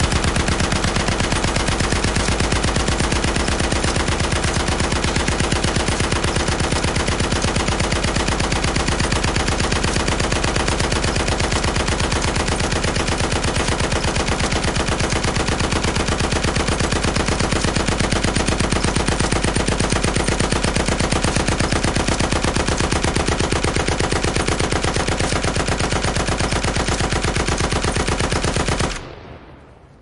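Machine gun firing one long continuous burst of rapid, evenly spaced shots. The firing stops about a second before the end, and an echo dies away.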